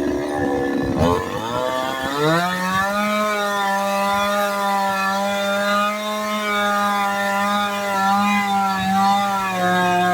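Two-stroke chainsaw engine revving: its pitch drops and then rises steeply about a second in, and it holds steady at high revs, dipping briefly near the end.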